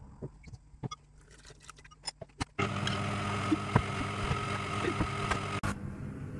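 Light clicks and taps, then about two and a half seconds in an electric stand mixer's motor starts running steadily with a low hum, its dough hook kneading bagel dough in a glass bowl.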